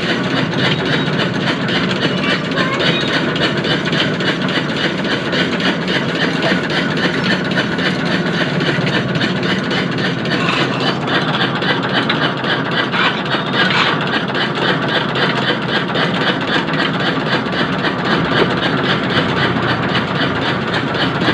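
A desi chura (flattened rice) machine running steadily with a loud, fast, even mechanical pulse. About halfway through its tone shifts somewhat higher.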